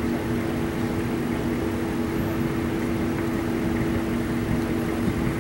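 A nearby vehicle engine running with a steady hum, over the low rumble of road traffic.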